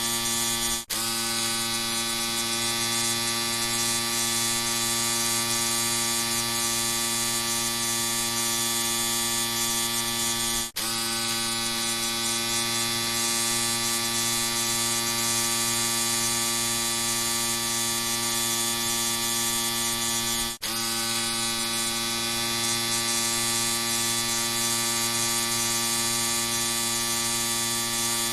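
Electric shaver running with a steady buzz, broken by three very short dips, about ten seconds apart.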